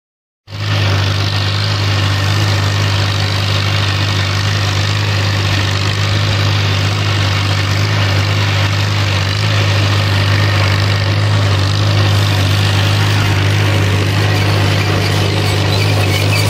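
Farmall B tractor's four-cylinder engine running steadily under load while pulling a grain drill, heard up close from the tractor. It starts abruptly about half a second in.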